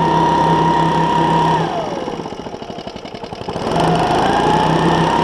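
Petrol leaf blower running at full throttle with a high whine. About a second and a half in it is throttled down to a pulsing idle, then about two seconds later it is revved back up to full speed.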